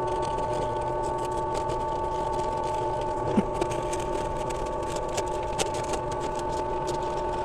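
Benchtop drill press running steadily with a four-flute quarter-inch mill bit cutting into injection-molded plastic, a steady motor whine with many small irregular ticks as the bit bites the plastic.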